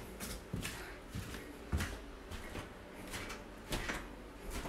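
Faint, scattered light knocks and rustles from a phone camera being handled and carried around a small kitchen.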